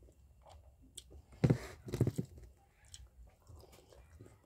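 Quiet sounds of eating rice and fish curry by hand, with two short louder sounds about a second and a half in and again half a second later.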